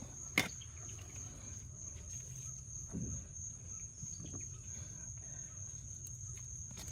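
Insects, crickets by the sound, calling in one steady high-pitched drone. A single sharp click about half a second in.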